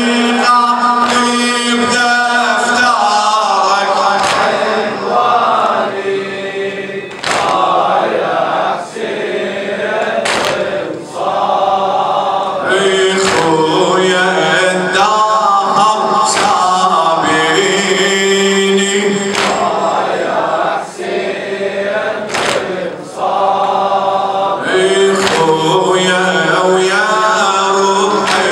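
A man chanting an Arabic Muharram lament into a microphone in a held, wavering melodic line, with sharp strikes every second or few.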